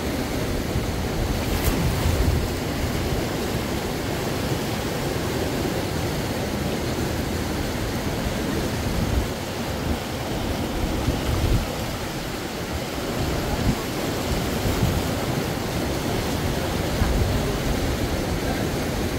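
Steady rushing noise of a flowing river, with uneven low rumbles of wind buffeting the microphone.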